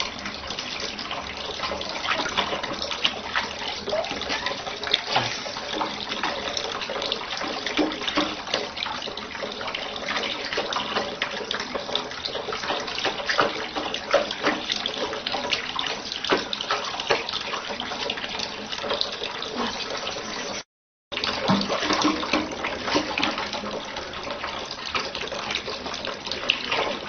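Tap water running steadily into a sink and spattering over a glass bowl and plate, with frequent small splashes as a cat paws at the dishes under the stream. The sound drops out for a moment about three-quarters of the way through.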